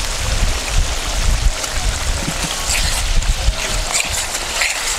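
Tomato sauce sizzling and bubbling in a pot: a steady hiss with scattered crackles, busier in the second half, over a low rumble.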